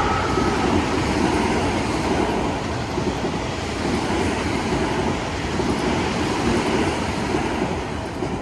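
Train passing close by, its wheels running on the rails with a steady rumble that starts to die away near the end.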